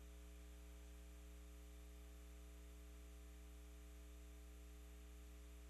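Near silence: a steady electrical hum with faint hiss.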